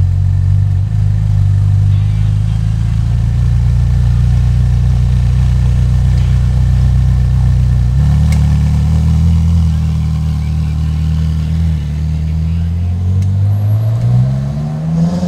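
Ferrari 458 Speciale's V8 idling with a steady low note. About thirteen seconds in, the engine note rises as the car pulls away.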